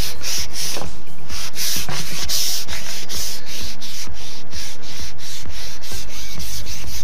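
Loud, close scratchy rubbing in a rapid, uneven run of short strokes.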